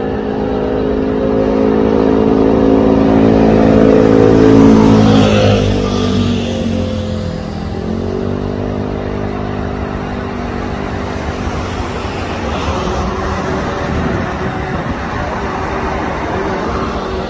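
Road traffic passing close by: one vehicle's engine grows louder, then its pitch drops as it goes past about five seconds in, and another engine carries on steadily after it.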